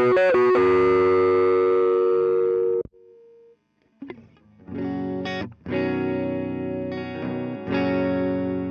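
Electric guitar (Tagima Seattle 2) played through a NUX MG-30 amp modeler and recorded direct: a few quick notes, then a chord that rings and is cut off sharply about three seconds in. After a second of silence, chords are struck and left to ring on a different amp model, the MG-30's Class A30.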